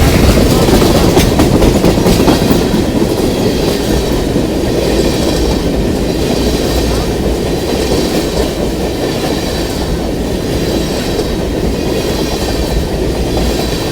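CSX freight train's cars rolling past at close range: a loud, steady rumble of steel wheels on the rails, with clickety-clack over the rail joints.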